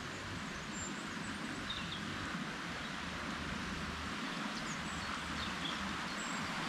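Steady rush of river water pouring over a weir, a little louder toward the end, with a few faint, brief bird chirps scattered through.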